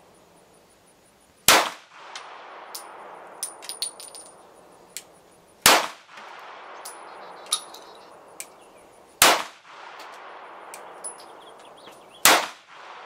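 Four semi-automatic pistol shots fired a few seconds apart, each sharp crack followed by a brief echo. Fainter clicks and a steady background hiss fill the gaps between shots.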